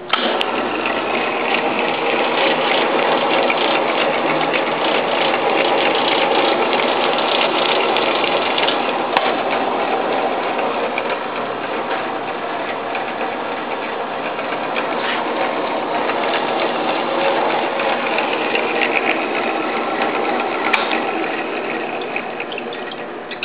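Rockwell Walker-Turner drill press switched on with a sudden start: its three-phase motor and spindle drive running loudly and steadily with a busy mechanical whir, tailing off near the end.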